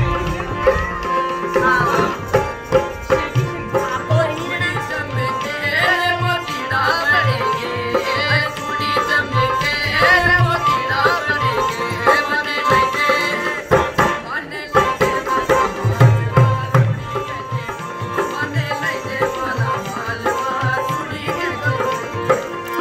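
Rajasthani folk music: a hand drum beating a rhythm under a sustained melody, with a voice singing.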